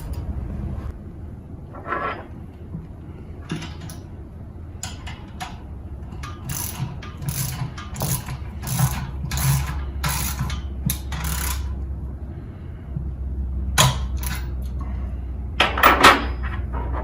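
Ratchet socket wrench worked back and forth on the motor-mounting bolts, a short rasping ratchet stroke about every half second through the middle, with a few sharp metal knocks and clinks from the hardware.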